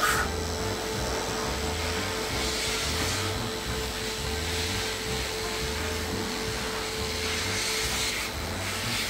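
Cordless electric dog clippers running with a steady hum, the blade rasping as it cuts through a matted curly coat.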